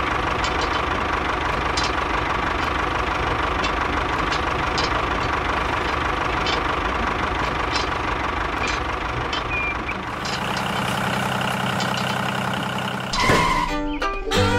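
Tractor engine running steadily with a knocking diesel chug. About ten seconds in, the sound shifts to a lower, steadier note.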